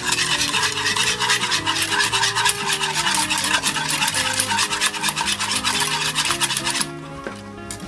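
Wire balloon whisk beating egg and granulated sugar in a small saucepan: a fast, scratchy run of rapid strokes as the wires scrape the pan and the sugar grains, stopping about a second before the end. Background music plays throughout.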